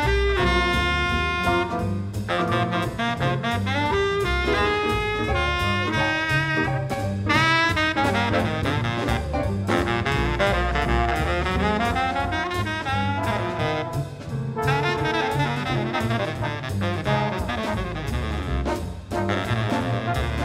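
Jazz big band music: a baritone saxophone solo over piano, double bass and drum kit.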